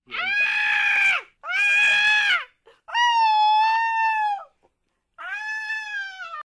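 A horror-film demonic scream used as a jump scare: four loud, shrill shrieks in a row, each about a second long, bursting out of silence, the last one quieter.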